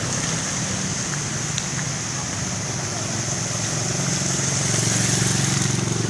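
A small engine running steadily, its note growing a little stronger in the last couple of seconds, over a constant high-pitched hiss.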